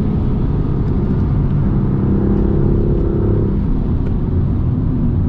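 BMW M2 CS's twin-turbo straight-six running at speed, heard from inside the cabin under a heavy, steady rumble of tyres and road.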